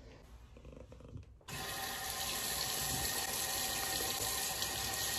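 Bathroom sink faucet turned on about a second and a half in, then running steadily into the basin.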